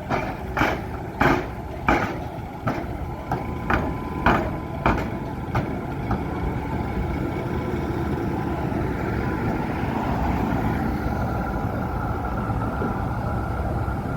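Tram wheels knocking over the rail joints of a tram-and-railway crossing, a sharp clack roughly every half second for the first six seconds, then a steady running rumble with a faint whine.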